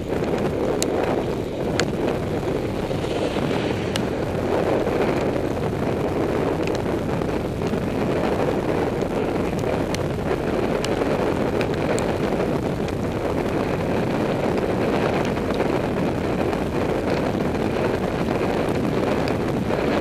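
Wind rushing over a bike-mounted action camera's microphone at about 30 to 39 km/h, mixed with tyres hissing on a wet road. Scattered sharp ticks sound now and then.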